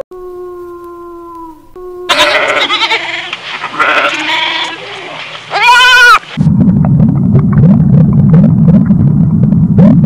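A wolf howling: one long call that falls slightly, then goats bleating in several loud, wavering calls. A loud, low, rough noise fills the last few seconds.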